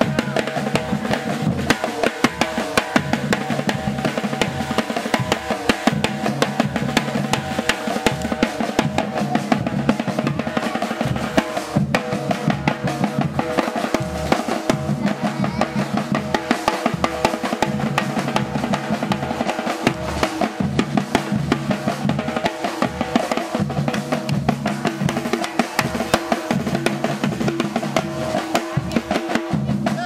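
Live drum kit being played, snare and bass drum hits in a continuous, fast rhythm.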